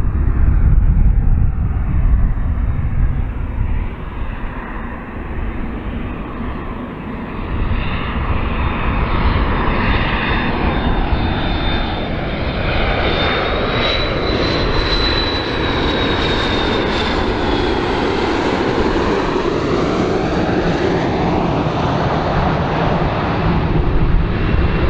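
McDonnell Douglas MD-80-series airliner's rear-mounted jet engines running as it passes low on landing approach. A steady roar carries a high whine that falls in pitch from about the middle of the pass.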